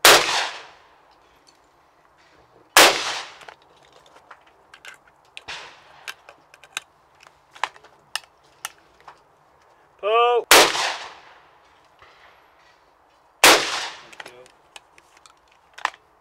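Side-by-side hammer shotgun fired at clays in two pairs: two shots about three seconds apart, then about ten seconds later two more about three seconds apart, each shot echoing briefly. Between the pairs come small clicks and knocks of the gun being handled, with the hammers being cocked near the end.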